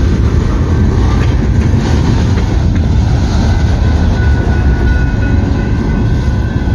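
Freight train cars rolling past: centerbeam lumber flatcars and a tank car. Their steel wheels make a loud, steady rumble on the rails with scattered clicks. A faint, steady high ringing comes in about halfway through.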